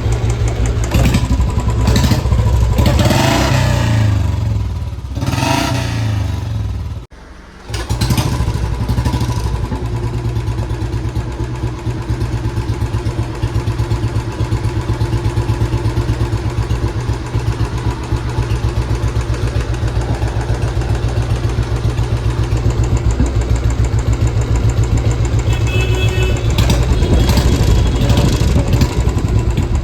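Royal Enfield Bullet 350 single-cylinder engine running, its pitch rising and falling a few times early on. After a brief break about seven seconds in, it settles into a steady, even idle thump.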